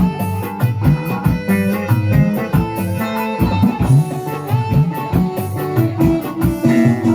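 Band music with a steady drum beat, a moving bass line and guitar.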